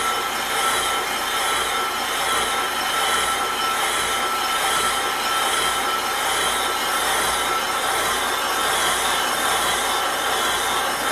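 Atlas brake lathe turning a cast-iron brake rotor while its cutting bits machine the faces. It makes a steady ringing tone over a scraping hiss that pulses about twice a second.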